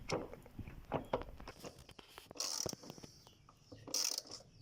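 Tool work on a washing machine's drum pulley bolt: scattered light clicks and two short rasps, one about halfway through and one near the end, as the loose pulley is secured.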